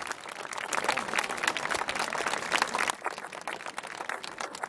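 Audience applauding, the clapping thinning out after about three seconds.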